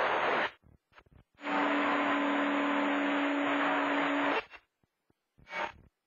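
CB radio on channel 28 picking up skip: a loud rush of static with a steady low tone in it, as a distant station keys an open carrier without speaking. It cuts off about half a second in, comes back for about three seconds, then gives one short burst near the end, with the squelch leaving silence between.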